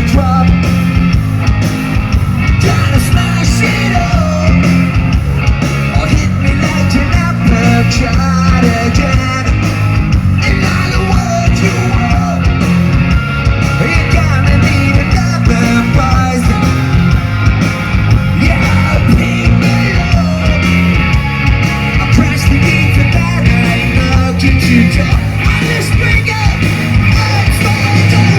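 Punk rock band playing live: fast driving drums, heavy distorted guitars and bass, with a shouted and sung vocal.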